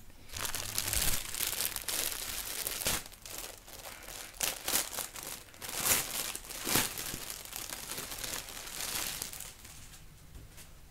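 Plastic wrapping crinkling and rustling as a new T-shirt is taken out and handled: a dense run of sharp crackles that dies down near the end.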